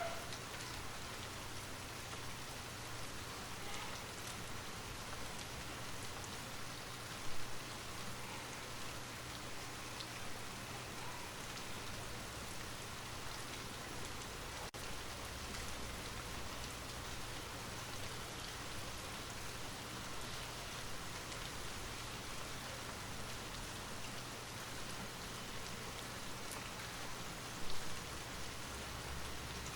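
Light rain falling steadily, an even hiss of rain with faint scattered drop ticks. Two brief louder moments stand out, about seven seconds in and near the end.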